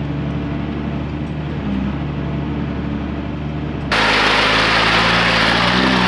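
Unimog truck's engine running steadily during a creek crossing; about four seconds in the sound cuts abruptly to a louder take with a strong rushing noise over the engine.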